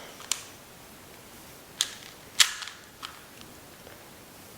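Sharp plastic clicks of a 2x2 speed cube being turned by hand, a few separate snaps with the loudest about halfway, as its layers are forced through corner-cutting turns.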